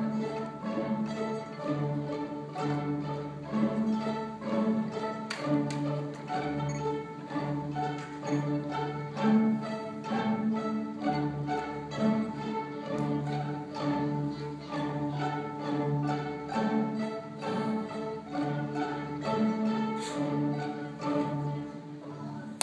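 String instruments playing a piece pizzicato: short plucked notes in a steady, even rhythm over a low repeating bass line.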